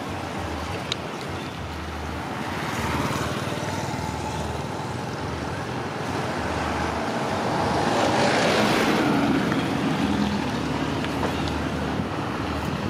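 Road traffic noise, with a vehicle passing close by that is loudest about eight to nine seconds in.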